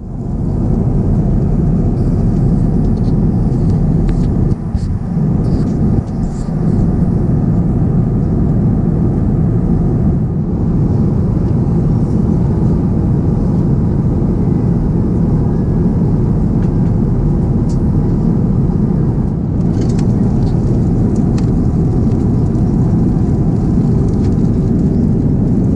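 Steady cabin roar of an Airbus A350-900 in cruise, the airflow and engine noise heard from an economy seat. Light rustles and clicks now and then, loudest a few seconds in and again about twenty seconds in.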